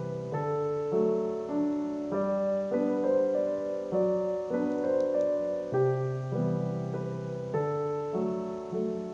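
Background piano music: slow, gentle held notes and chords, changing every second or so.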